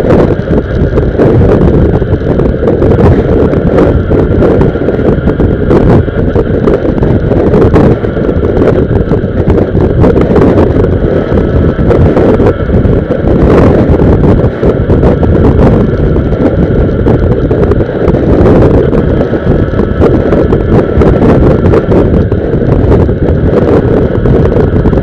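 Heavy wind rush buffeting the microphone of a camera mounted on a Honda motorcycle riding at highway speed, with the motorcycle's engine running steadily underneath.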